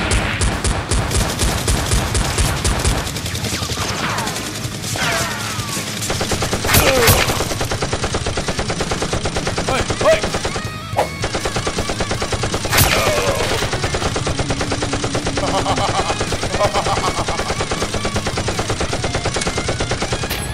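Rapid automatic gunfire sound effects in long strings of quick shots, with a few louder single cracks and sweeping whooshes, dubbed over a Nerf blaster fight.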